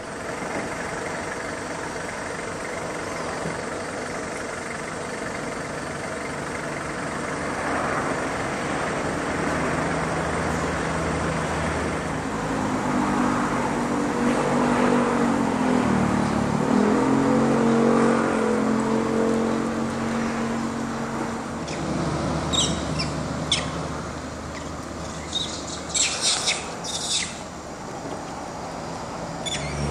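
A motor vehicle's engine hum builds over several seconds, dips in pitch about halfway through, rises again and fades. Near the end come a few short, high chirps.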